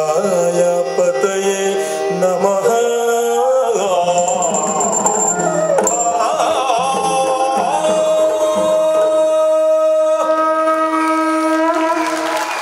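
Yakshagana theatre music: a sung melody over a reedy held-note accompaniment and hand drums, settling near the end into one long held note.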